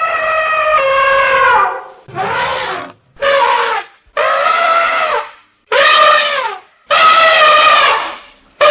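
Elephant trumpeting: a run of about six short, high, brassy calls with brief gaps between them, several dipping in pitch as they end.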